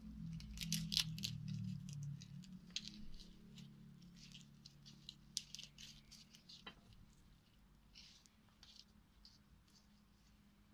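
Soft crackling and rustling of charred, papery eggplant skin being peeled off by hand and dropped onto a plate, as scattered small ticks that thin out toward the end, over a faint low hum.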